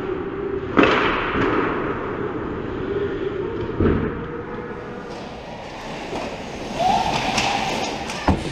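Ice hockey play at the net: sharp thuds and cracks of puck and sticks striking, about a second in, near four seconds in and again near the end, over skate scrapes and a steady rink hum.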